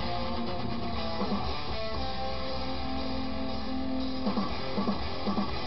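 Guitar music with held notes and short repeated plucked notes.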